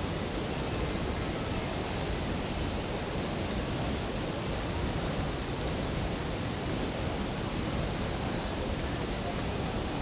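Tegenungan Waterfall: a steady, even rush of falling water that does not change.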